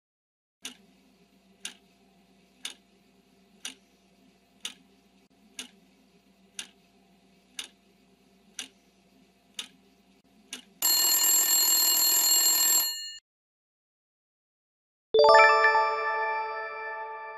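Quiz countdown timer sound effect: a clock ticks once a second, ten ticks over a faint hum, then an alarm bell rings for about two seconds as time runs out. A few seconds later a bright chime rings and fades as the answer is revealed.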